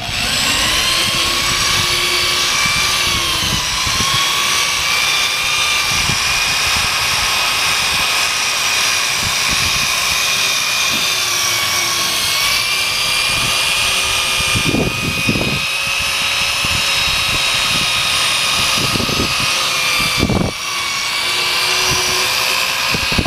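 Power drill spinning a wet 3000-grit 3M Trizact foam sanding disc against a plastic headlight lens: a steady motor whine that spins up at the start, its pitch wavering slightly as the disc is pressed on.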